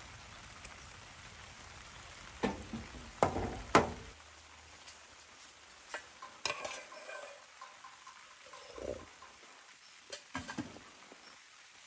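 Metal spoon clinking and scraping against an aluminium pot as its contents are stirred, a handful of sharp clinks, the loudest about three to four seconds in. A low steady rush underneath stops about four seconds in.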